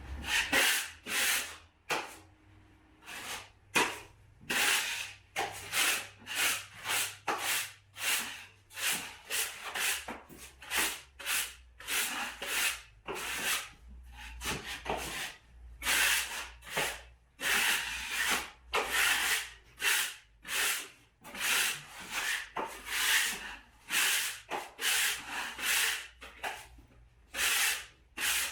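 Repeated hand strokes rubbing across a drywall joint, about one or two strokes a second in an irregular rhythm.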